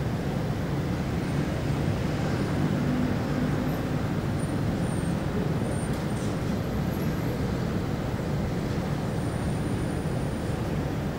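City traffic ambience: a steady low rumble of road vehicles, even in level throughout, with no single event standing out.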